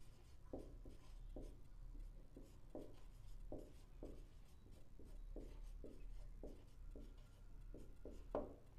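Faint handwriting: a run of short separate writing strokes, about two a second, with one slightly louder stroke near the end.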